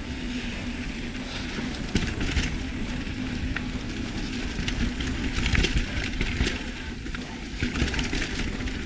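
Mountain bike rolling along a dirt trail: continuous tyre and wind rumble with irregular clatter and knocks from the bike over rough ground.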